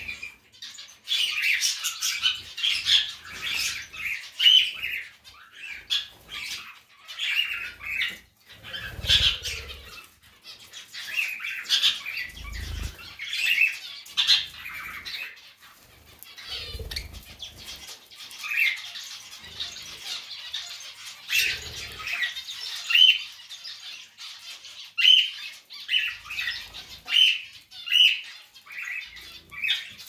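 Pet budgerigars chirping and chattering in short repeated calls. Four times, a brief low whoosh of wingbeats cuts in as birds fly to the millet spray.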